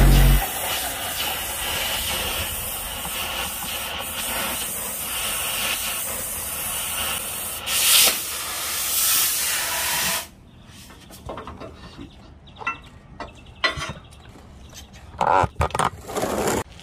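Oxy-fuel cutting torch hissing steadily while cutting metal, with two louder rushes of gas around 8 and 9 seconds in. The hiss cuts off about ten seconds in, leaving scattered light metal clinks and knocks.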